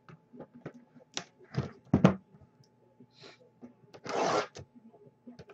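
A cardboard trading-card box handled and set down on a desk, with several knocks, the loudest about two seconds in. About four seconds in comes a short scratchy rip as the box's plastic shrink wrap is slit open.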